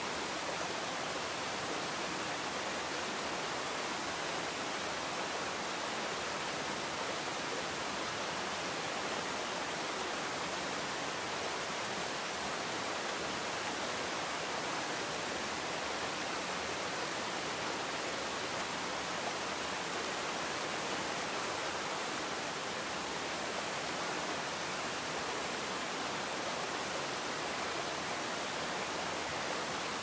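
Waterfall and the rocky stream below it running: a steady, unbroken rush of falling water.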